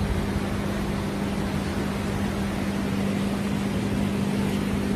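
A motorboat's engine running at a steady pitch, a constant low hum over a steady hiss.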